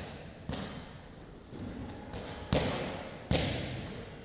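Medicine ball wall balls: three thuds as the ball strikes the wall target and is caught, each ringing on in a large echoing gym hall.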